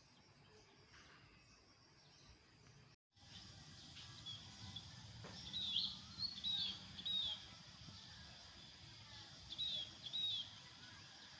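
Outdoor ambience with a bird calling: short, high, down-slurred chirps, a run of about five roughly halfway through and two more near the end, over a low background rumble. Near the start the sound drops out completely for a moment, as at an edit cut.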